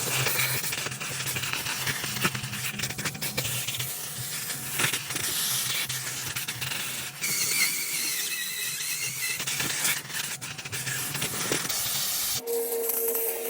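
Car-interior detailing equipment running: a loud, steady hiss of rushing air or steam over a low motor hum, with a brief whine partway through. About twelve seconds in, it cuts abruptly to a different machine sound with a steady mid-pitched hum.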